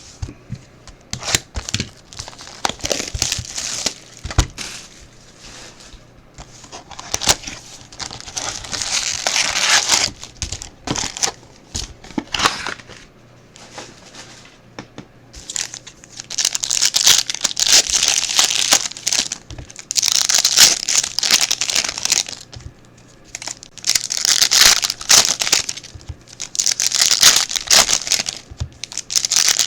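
Plastic wrapping and foil trading-card pack wrappers being torn open and crinkled by hand, in repeated bouts with sharp crackles and clicks between them. The crinkling grows louder and denser in the second half.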